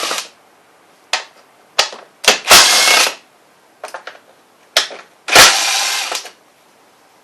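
A power driver spinning a 5/16 socket in two bursts of about a second each, each opening with a sharp crack, with short clicks and knocks of the tool between: bolts being backed out on a small engine.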